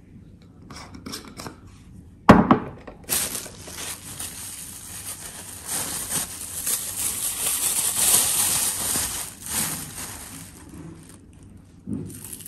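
A sharp knock on the glass dish about two seconds in, then about eight seconds of gritty crunching from a pepper mill grinding pepper over sliced red onion.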